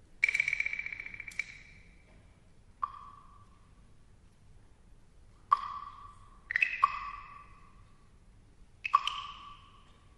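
Small metal gongs struck a few at a time in a sparse pattern, each note ringing out and fading. The strikes fall at two pitches, a higher and a lower. The piece opens with a quick roll on the higher one.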